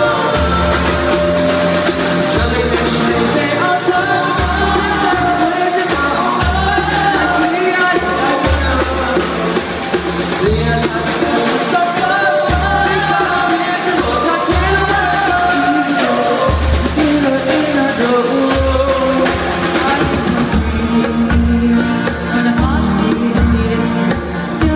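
Live rock band playing a song: a lead vocal over drum kit and bass with a steady beat. The cymbals drop out near the end.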